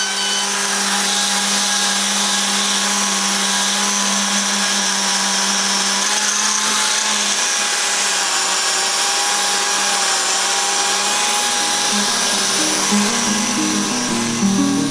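Random orbital sander connected to a dust extractor, running steadily as it sands a wooden frame. Plucked-string music comes in about twelve seconds in.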